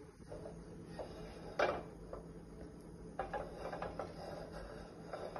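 Faint handling noises from a frying pan and utensils on a gas stove: a few brief scuffs and knocks, the clearest about one and a half seconds in and a short cluster past the halfway point, over a low steady hum.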